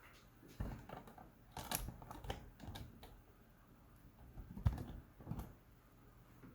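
Irregular clicks and taps of keys on a laptop keyboard, a few at a time with short pauses between.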